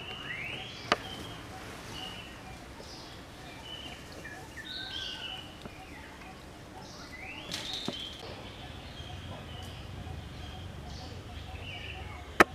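Birds chirping among the trees: scattered short high notes and two quick rising calls, over a low steady outdoor background. A few sharp clicks cut through, a loud one about a second in and another near the end.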